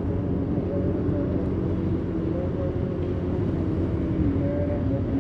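Vehicle engine running steadily while travelling along a road, heard from on board over a low rumble of road noise. The engine note dips slightly about four seconds in.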